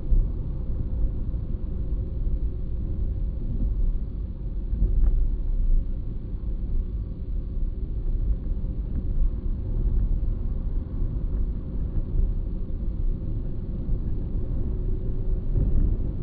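A car being driven along a road: a steady low rumble of engine and road noise.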